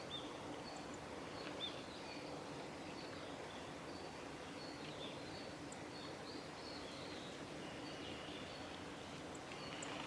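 Small songbirds giving short, thin, high-pitched call notes, scattered irregularly throughout, over faint steady background noise with a low hum.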